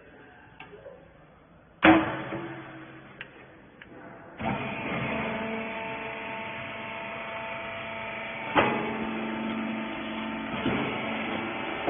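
Industrial rag baling machine: a loud metal clang about two seconds in, then its motor and hydraulic pump start about four seconds in and run steadily with a humming drone. A couple of sharp knocks follow.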